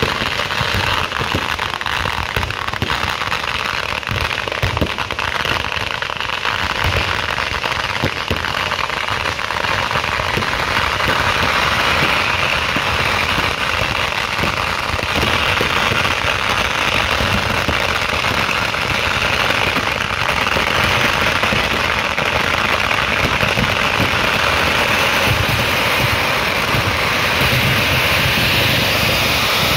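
Ground-level festival fireworks going off in a dense, unbroken barrage of bangs and crackling. It grows a little louder about a third of the way in.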